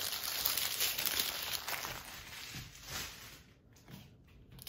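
Small plastic zip bags of diamond-painting drills crinkling and rustling as they are handled, louder for the first couple of seconds and then quieter.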